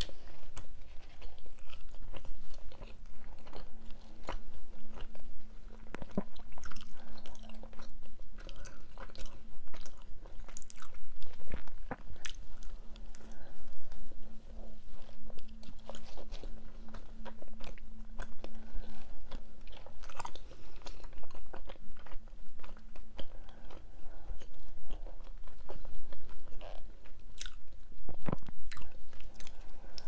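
A person chewing and biting into a mini pizza, close-miked: crunchy bites of crust and many small wet mouth clicks.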